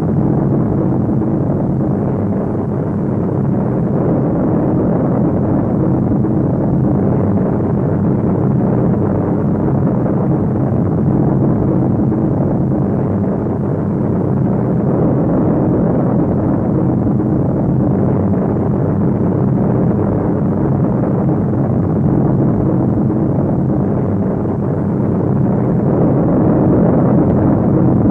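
Piston-engine propeller bombers droning steadily in flight: a dense, low engine hum with a few steady tones in it, growing a little louder near the end.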